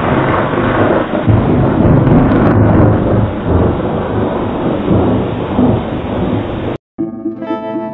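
A loud, dense rumbling noise that cuts off suddenly about seven seconds in, followed by background music with plucked strings.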